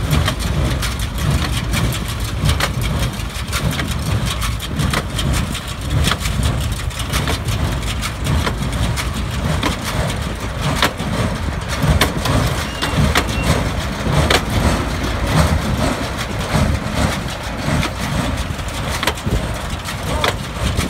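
A tractor-drawn small square hay baler at work: its plunger knocks about once a second as it crushes and packs hay into bales, over the steady drone of the Belarus tractor's diesel engine.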